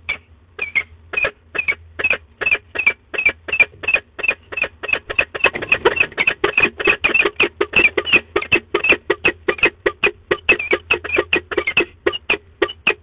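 Peregrine falcon calling at the nest box: a fast, even run of short calls, about four or five a second, quickening a little toward the middle.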